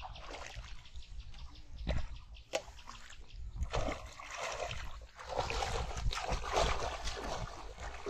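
Shallow muddy paddy water splashing and sloshing as a fish is grabbed by hand. A few separate splashes early on, then from about three and a half seconds in, continuous busy splashing.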